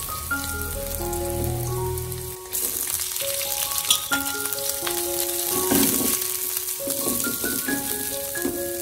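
Garlic and shredded ginger sizzling in oil in a steel wok, with a metal spoon scraping and clinking against the wok now and then. A light tune of single plucked notes plays over it.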